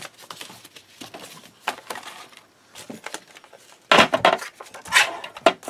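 Paper handled and shuffled with soft rustles and light clicks, then a plastic Fiskars paper trimmer knocks and clacks several times as it is set down and positioned on the cutting mat, about four and five seconds in.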